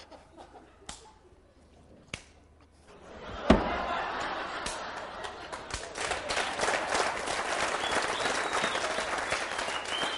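Audience applause breaks out after a single sharp thump about three and a half seconds in, and continues as dense clapping with crowd voices. Before it there are only a few soft clicks.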